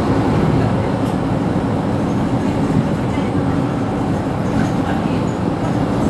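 Mercedes-Benz Citaro C2 city bus running along its route, heard from on board: steady engine and road noise with no sudden events.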